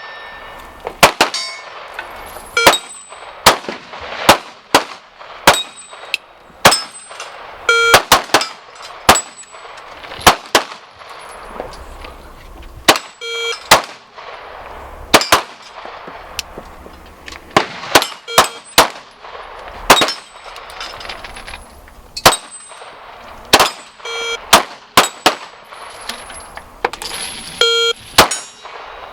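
Pistol shots fired over and over in a timed trigger-reset drill, roughly one a second and often in quick pairs, with short metallic ringing tones among them.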